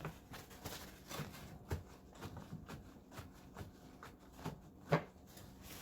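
Irregular light clicks and taps of kitchen utensils and dishes being handled while a salad is prepared, with a sharper knock near the end.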